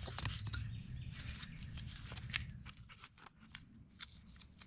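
Faint scattered clicks and light scraping of a wooden bow drill set while the hearth is being burned in, over a low rumble; the sound fades over the first three seconds.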